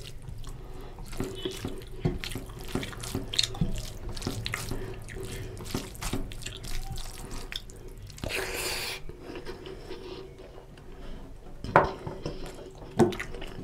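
A bare hand mixing rice with curry gravy on a plate: wet sounds of fingers working through the rice, with many small clicks. A short hiss about eight seconds in and two sharper knocks near the end.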